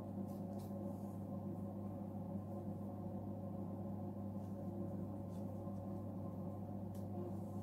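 A steady low hum made of several held tones, constant throughout, with a few faint short clicks on top.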